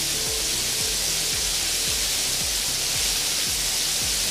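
Chicken drumettes deep-frying in a pan of hot oil, a loud, steady sizzle. Background music with a steady beat plays underneath.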